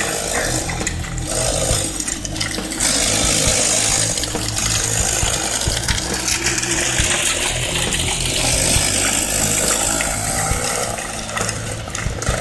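Small 50cc two-stroke go-kart engine (Comer 50) running steadily.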